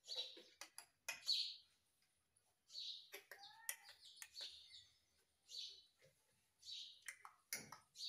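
Indian ringneck parakeet giving about eight short, high chirps and squawks with pauses between them, a few with gliding pitch about three to four seconds in.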